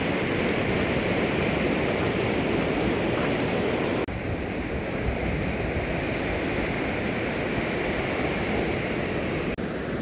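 Steady rush of ocean surf and wind on a beach, a continuous roar with no distinct events. The sound changes abruptly about four seconds in and again near the end.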